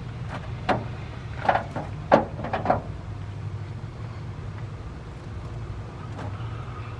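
A few sharp knocks and clunks in the first three seconds, the loudest about two seconds in, as a battery charger and its leads are handled and set down by the truck. A steady low hum runs underneath.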